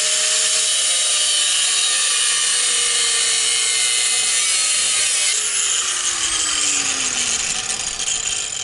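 Angle grinder disc cutting through a stripped stud and its spinning nut on a Dana 44 front spindle, the metal hissing and screeching under the disc. About five seconds in the cut ends and the motor's pitch falls as the disc winds down.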